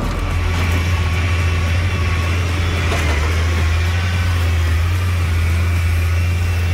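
Large engine running steadily: an even, deep drone with machine noise above it.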